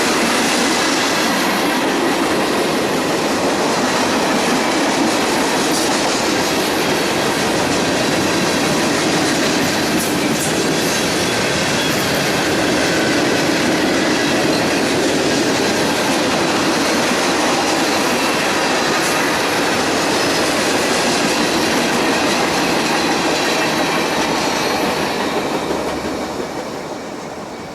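Freight cars of a passing manifest train rolling by, a steady rumble with wheels clattering over the rail joints and faint high wheel squeal, dying away near the end.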